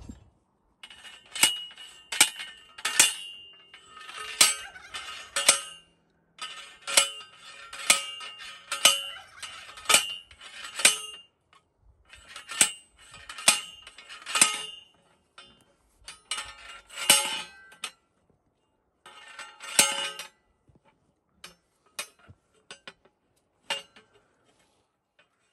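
Steel fence T-post being driven, with repeated ringing metal clangs about once a second in runs with short pauses, fainter near the end. The post has struck a rock below ground and won't go down.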